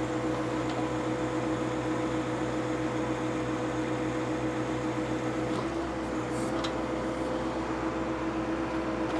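Compact diesel tractor engine running at a steady speed under a backhoe job: an even hum with a held whine over it, unchanging throughout.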